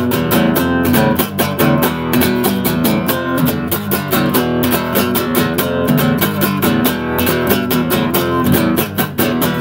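Acoustic guitar strummed in a quick, steady rhythm through chord changes.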